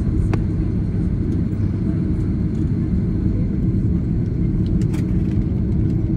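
Airliner cabin noise while taxiing: a steady low rumble of the jet engines at taxi idle and the wheels rolling on the taxiway, heard from inside the cabin, with a couple of faint clicks.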